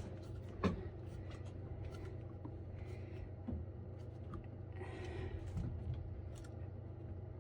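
Faint handling of plumbing fittings as a fitting is screwed onto the water pump: a sharp click about a second in, small ticks, and brief soft scrapes. A steady low hum runs underneath.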